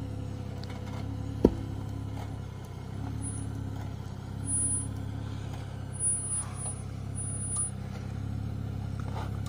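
Jeep Wrangler Willys engine running at low, steady revs as it crawls down a rocky off-road trail, with one sharp knock about one and a half seconds in.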